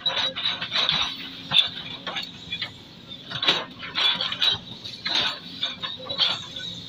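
Sumitomo hydraulic excavator working its bucket through wet mud and brush: irregular crunching, scraping and snapping of branches with metallic clinks, over the faint low hum of the engine.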